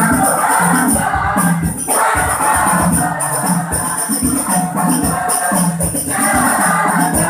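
A crowd singing a devotional chant together to a steady, quick beat of frame drums with jingling tambourines.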